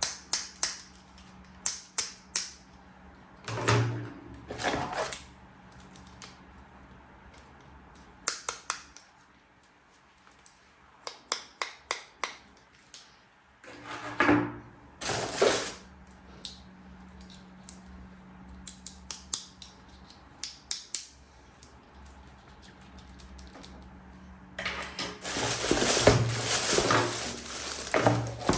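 Plastic toy pieces being handled: scattered sharp clicks and taps, a few heavier knocks, and a long spell of continuous rustling and clattering near the end.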